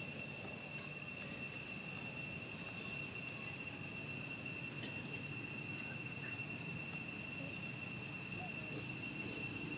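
Steady, unbroken high-pitched insect drone over a low outdoor rumble, with a couple of faint high chirps about a second in.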